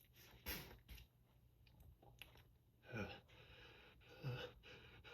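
Faint breathing sounds from a person in an allergy sneezing fit: a quick sniff about half a second in, then short gasping breaths, one falling in pitch about three seconds in and a lower one just after four seconds, as a sneeze builds.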